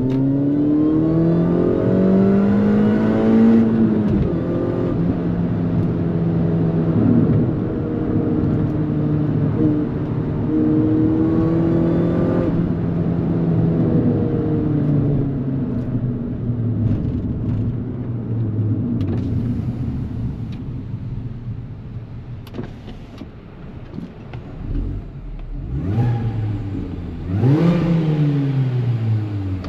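Mini JCW GP R53's supercharged 1.6-litre four-cylinder engine under way. Revs climb hard for about four seconds, then drop at a gear change, hold fairly steady and slowly fall off. Near the end they rise and fall sharply a few times as the car accelerates again.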